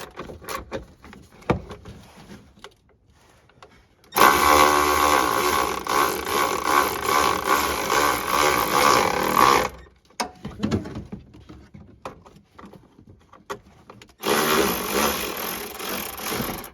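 Power driver running in the mounting bolts of a fog light housing in two runs: one of about five seconds, then a shorter one near the end, with light knocks of handling in between.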